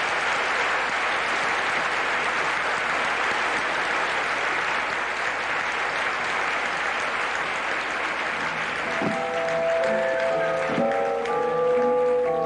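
Audience applauding after a song. About eight seconds in, bell-like pitched notes of music start up under the applause.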